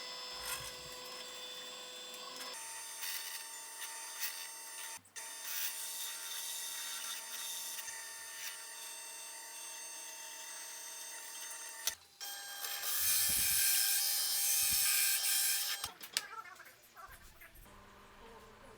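Woodworking power tools running in a string of short clips, with a steady machine whine. About two-thirds of the way through comes a louder stretch of harsh cutting noise.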